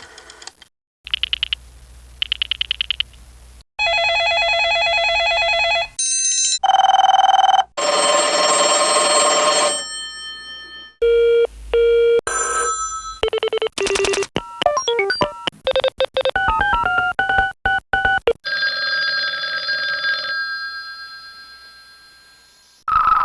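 A string of telephone sound effects: two short warbling electronic rings, steady call tones, a telephone bell ringing, then a quick run of stepping beeps. Near the end a held tone fades away.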